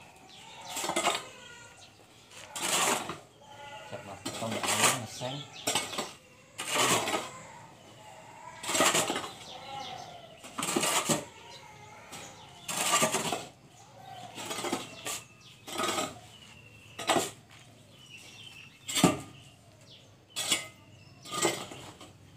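Masons' metal hand tools scraping and clinking in cement mortar and against a bucket, one stroke about every two seconds. Faint bird chirps fill the gaps between the strokes.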